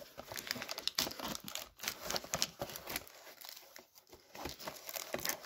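Clear plastic shrink wrap crinkling and tearing as fingers pick at it and peel it off a cardboard trading-card box: irregular crackles, quieter for a moment a little past halfway.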